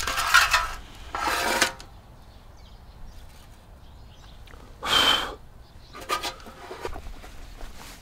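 Stainless steel fire pit's ash tray sliding out with two metal scrapes, then a ringing metal clank about five seconds in, followed by a few lighter clinks.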